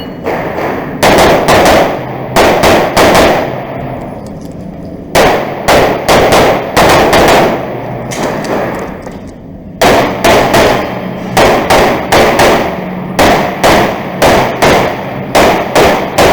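Compensated STI Trubor open-division race pistol firing rapid shots in quick pairs and strings, with short pauses of a second or two between strings.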